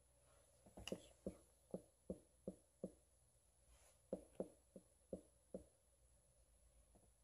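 Whiteboard marker tapping and stroking on a whiteboard as small numbers are written: faint short ticks, about three a second, in two runs with a pause between.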